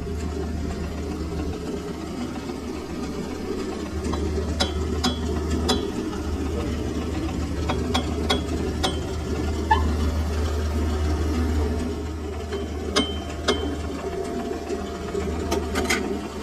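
Lathe chuck key being turned in the chuck to tighten its jaws on a steel pipe, giving short sharp metallic clicks in small groups, over a steady low machine hum.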